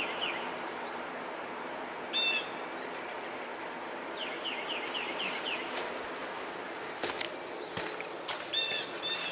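Songbirds chirping in several short phrases, including a quick run of about six chirps midway, over a steady background hiss of outdoor noise. A couple of brief clicks come near the end.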